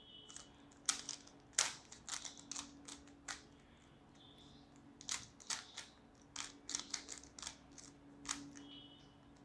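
3x3 Rubik's cube being turned by hand: quick, irregular plastic clicks as its layers rotate, in short runs with brief pauses.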